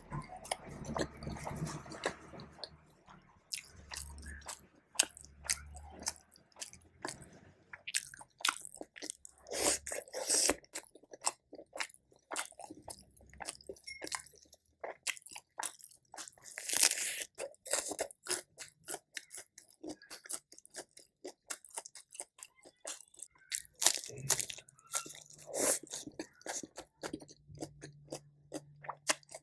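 Close-miked eating: a person chewing and biting food, with many crisp crunches and small wet mouth clicks in an irregular run, and a few louder crunches along the way.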